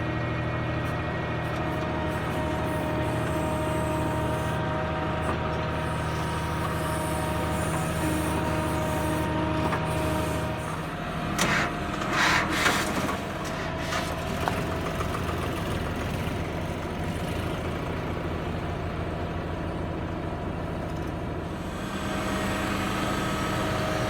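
Tractor diesel engine running steadily, with a loud burst of hissing about halfway through that lasts a second or two.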